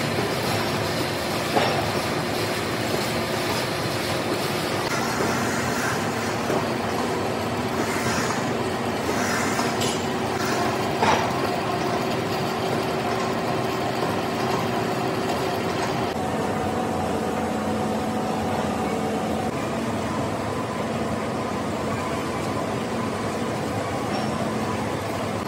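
Large engine lathe running, turning a big steel shaft, a steady mechanical drone with a couple of sharp clicks. The higher hiss drops away about two-thirds of the way through.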